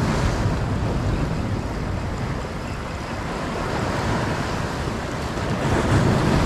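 Rough sea surf breaking and washing against rocks, a steady rushing that swells louder near the start and again near the end.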